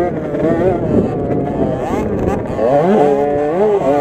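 Small two-stroke minibike engine, a KTM 50 SX, revving hard under throttle, its pitch rising and falling as the rider accelerates and eases off. The pitch sags around a second in, then climbs steeply again about three seconds in.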